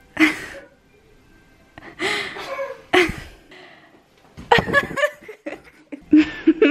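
Laughter in several short bursts with breathy gasps between them.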